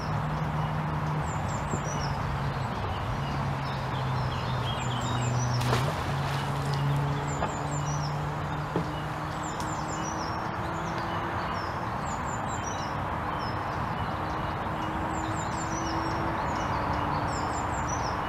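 A magnet on a rope is thrown into a canal and lands with a single splash about six seconds in. Under it, small birds sing short high chirps over and over, and a low steady drone of some distant engine runs on, changing pitch about halfway through.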